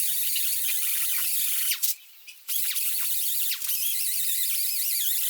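Die grinder spinning a 3M Roloc surface-conditioning disc across the deck of a 5.3 LS engine block: a steady high whine with hiss, its pitch wavering as the disc is pressed and moved. It stops for about half a second around two seconds in, then starts again.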